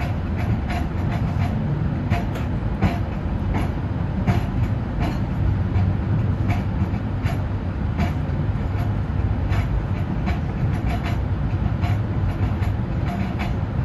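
MBTA Green Line light rail train running on its rails, heard from inside the car: a steady low rumble with irregular sharp clicks and knocks from the wheels and track.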